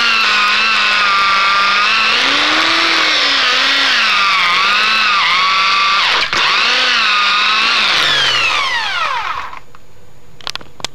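Corded electric drill running with its bit cutting a round hole in a coconut shell, the motor's whine wavering in pitch. It cuts out for a moment about six seconds in, then near the end the motor winds down with a falling whine and stops.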